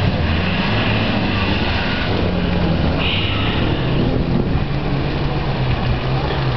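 Off-road 4x4 engine running under load through mud, its revs rising and falling in steps.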